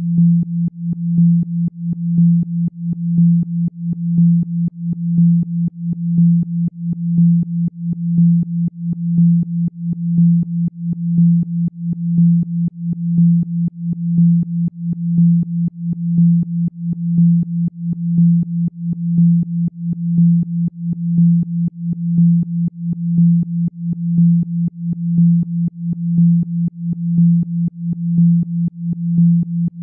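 A single low electronic tone, a Rife-style healing frequency, held at one pitch and pulsing in loudness in an even rhythm of roughly once a second.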